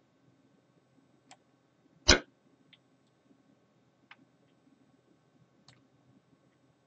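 Computer mouse clicks: a few faint, scattered clicks, with one sharp, much louder click about two seconds in, over a faint steady hum.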